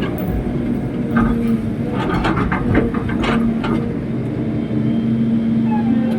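Excavator's diesel engine running steadily, with a cluster of short knocks about one to three and a half seconds in.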